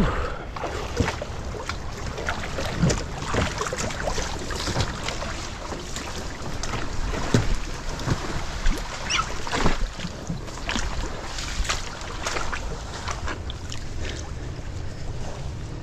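Irregular crackling, rustling and scraping of mangrove branches and roots as the boat is pushed among them and a line is tied to a branch, over a steady rumble of wind on the microphone.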